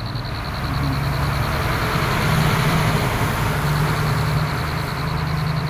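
Road traffic: a motor vehicle's engine and tyres passing close by, growing louder to a peak a couple of seconds in and easing off near the end.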